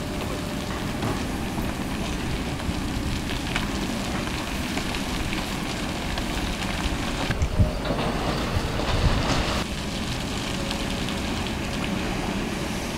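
Kobelco hydraulic excavator running steadily at work. A little past the middle, sand and rocks pour from its bucket into a dump truck's bed for a couple of seconds, with two heavier knocks as stones land.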